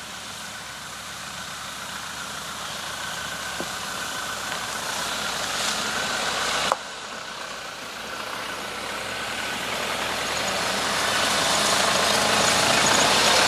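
A pickup truck followed by an SUV driving slowly on a dirt track, engines and tyres growing louder as they approach. There is one sharp click about halfway through.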